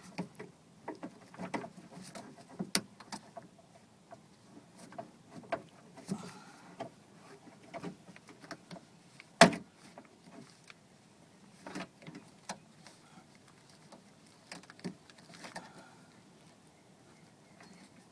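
Scattered clicks and knocks of hands working loose plastic and metal parts inside a car door while removing the power door lock actuator, with one sharp click about nine seconds in.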